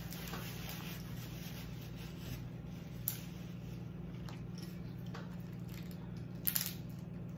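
Cooked snow crab leg shells being cracked and pulled apart by hand: a sharp snap about three seconds in and a louder double crack near the end, with soft squishing of the meat, over a steady low hum.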